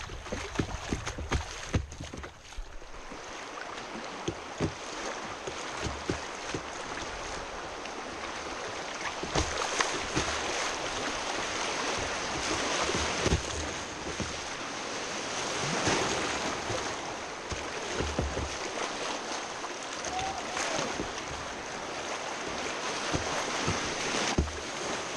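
River water rushing over a shallow rocky riffle and splashing around a kayak, with many short splashes and knocks against the hull. The rush grows louder midway as the boat runs through small rapids.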